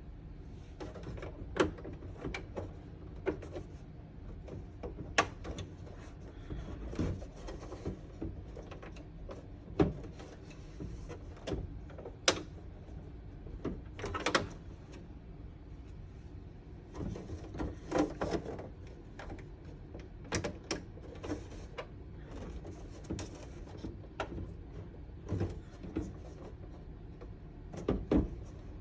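Diorama pieces being handled and fitted together by hand: irregular clicks, taps and knocks with some rubbing, at uneven intervals.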